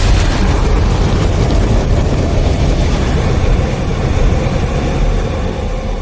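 Logo-intro sound effect of fire and explosion: a sharp hit, then a loud, deep rumbling roar that fades away near the end.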